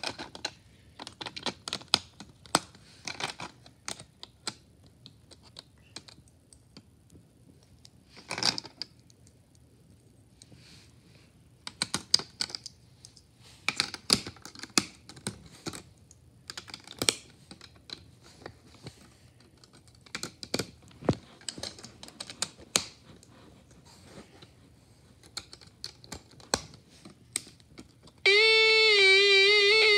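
Plastic Snap Circuits parts clicking and rattling in scattered bursts as they are pressed and snapped onto a plastic base grid. Near the end, a loud steady buzzing tone with a slight waver starts from the Snap Circuits speaker, sounding in a circuit built with the power amplifier IC.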